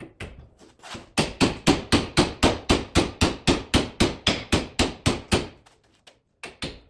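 A quick, even run of about twenty hammer blows, roughly four a second, starting about a second in and stopping about two thirds of the way through, followed by a few lighter knocks.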